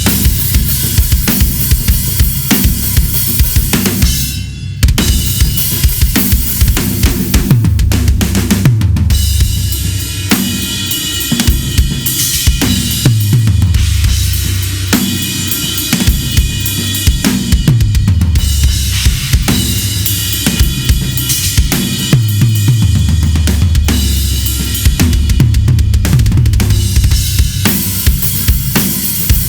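Gretsch USA Custom drum kit played as a whole kit: kick drum, chrome-over-brass snare, rack and floor toms, hi-hat and cymbals, with the toms ringing and dropping in pitch after the hits. There is a brief break in the playing about four and a half seconds in.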